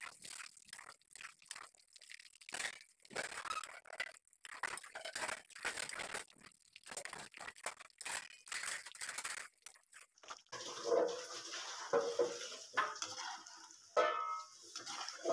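Hot oil sizzling and crackling as fish cutlets deep-fry in a kadai, stirred with a slotted spoon. About ten seconds in the sizzle becomes a steadier hiss, with a few short pitched sounds near the end.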